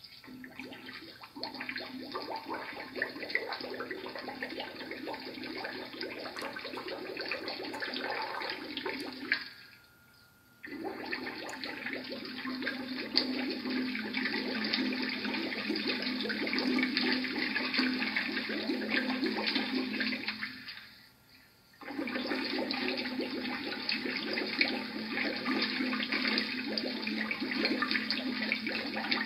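Continuous bubbling, rushing water, broken twice by a gap of about a second.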